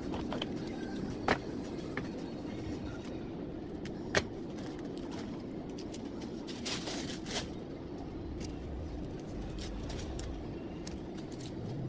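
Newspaper-wrapped flowers being handled and unwrapped on a worktable: two sharp clicks, about a second in and about four seconds in, and a brief papery rustle near the middle, over a steady low hum.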